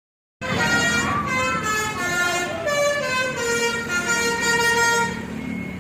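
Bus's multi-tone 'telolet' musical air horn (a Basuri horn) playing a melody of several notes, stepping from one note to the next. It starts suddenly just under half a second in and stops about five seconds in.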